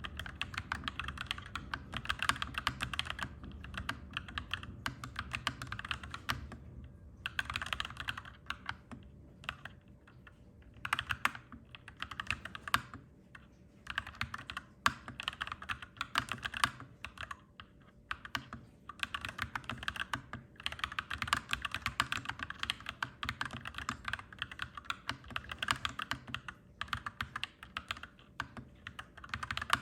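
Clacky mechanical keyboard being typed on steadily, in runs of rapid keystrokes broken by short pauses, over a low steady background hum.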